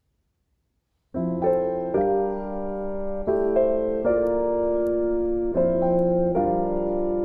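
Near silence for about a second, then solo piano background music starts, with sustained chords changing about once a second.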